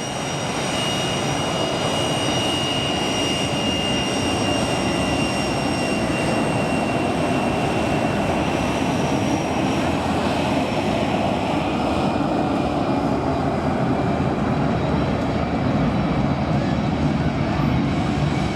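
Airplane engine running in flight overhead: a steady roar with a high whine that slowly falls in pitch.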